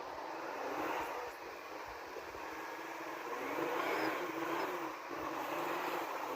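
Off-road 4x4's engine working under load as the vehicle pulls through mud, the revs rising about halfway through.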